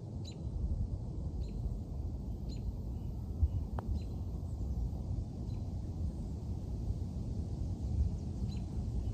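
Wind buffeting the microphone as a steady low rumble, with birds chirping faintly about once a second. A single light click of the putter striking the golf ball comes a little under four seconds in.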